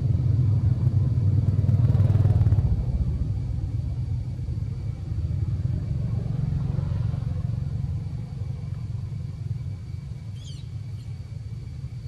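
A steady, fluttering low rumble, loudest in the first couple of seconds and fading gradually after that. A brief rustle comes about two seconds in, and a short high squeak near the end.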